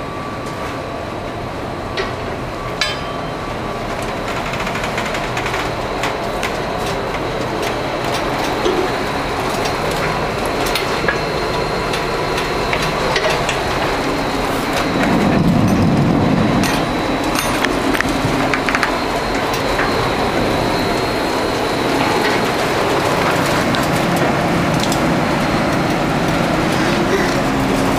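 Steady mechanical rumble and hum inside the ferry M/V Matanuska running through rough seas, with scattered knocks and clicks throughout and a louder low surge about halfway through.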